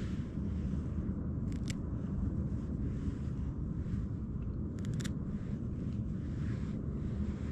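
Steady low rumble of outdoor background noise, with a few sharp clicks: one a little under two seconds in and a quick pair around five seconds in.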